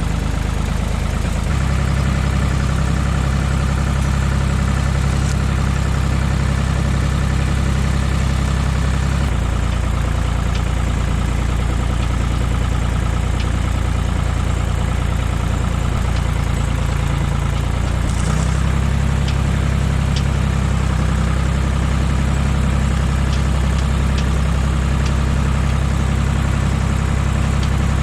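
Tractor engine running steadily, its low note stepping to a new engine speed a few times.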